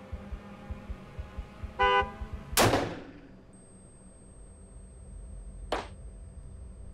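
A short car-horn honk, then about half a second later a single revolver gunshot, the loudest sound, with a decaying tail. A thin, high, steady ringing tone follows, and a second, shorter sharp knock comes near the end.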